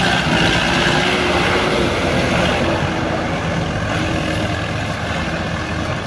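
Diesel tractor engines running steadily under load, a continuous drone with a slightly wavering whine, as a T-40 tractor tows a Lovol 754 tractor mired in mud.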